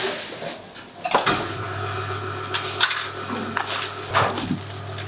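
Handling clatter of a stainless-steel chamber vacuum sealer and plastic-packed sausages: knocks of the lid and packs against the metal. From about a second in, a steady low machine hum runs underneath.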